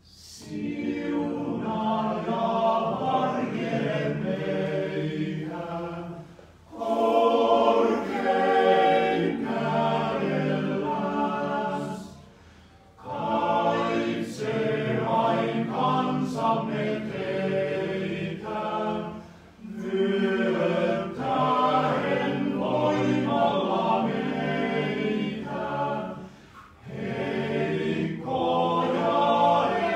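Men's choir singing a cappella, in long phrases with a short break between each, about four phrases in all.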